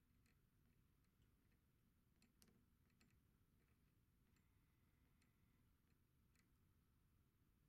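Near silence, with faint, irregular small clicks from brass clock motion-work wheels meshing as they are turned slowly by hand; the most distinct click comes about two and a half seconds in.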